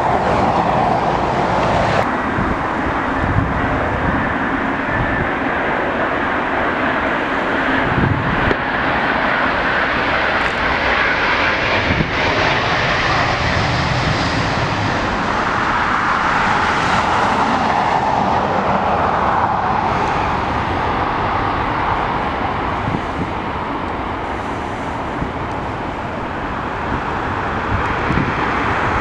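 Jet airliner turbofan engines running on the runway, first a Boeing 737 and then an Airbus A350, as a continuous jet roar that swells and fades. Gusty wind rumbles on the microphone underneath.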